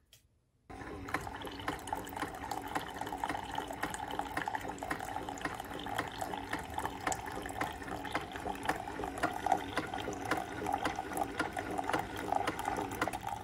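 Keurig 2.0 single-serve coffee maker brewing, a stream of liquid pouring into a ceramic mug over a steady hum, with many small crackling ticks. It starts just under a second in.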